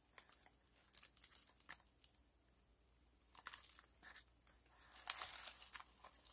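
Faint rustling and crinkling of paper and clear plastic as a cardstock tag is handled and slid into a plastic pocket page. There is a quiet stretch in the middle, and the rustling gets busier near the end.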